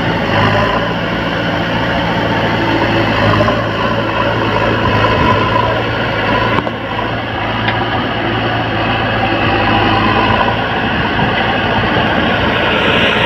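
Diesel engines of a JCB backhoe loader and a John Deere 5036 D tractor running steadily at close range, a constant low hum under a dense mechanical noise.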